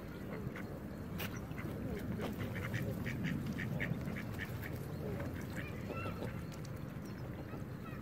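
Mallards quacking in a series of short calls, with a few longer calls from Canada geese, over a steady low background noise.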